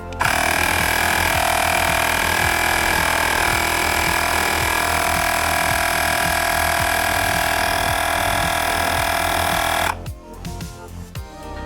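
Syncwire portable tire inflator's compressor running with a loud, steady buzzing hiss. It starts abruptly and cuts off about ten seconds in, over background music.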